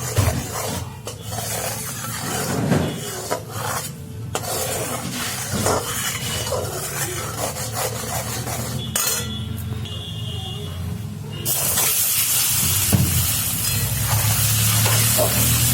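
Cooking in a pan: food frying and sizzling while it is stirred, with pan and utensil clatter. The sound changes abruptly at a couple of points, and a louder even sizzle-like hiss runs through the last few seconds.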